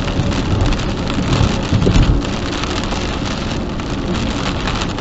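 Heavy rain beating steadily on a vehicle, with a brief low rumble swelling about a second and a half in.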